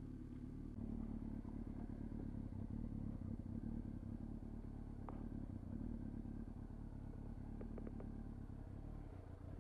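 Yamaha R6 inline-four engine idling steadily at a standstill. The owner says it loses power after running a while and suspects it is not firing on all cylinders.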